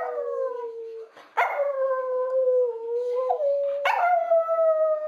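Miniature Pinscher howling. One howl trails off about a second in, then two more long howls follow, each starting sharply and sliding down in pitch; the last is still going at the end.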